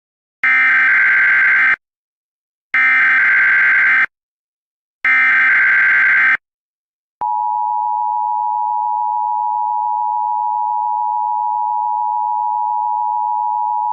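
Emergency Alert System SAME header: three short bursts of warbling digital data noise, about a second and a half apart. About seven seconds in, the steady, high-pitched two-tone EAS attention signal begins.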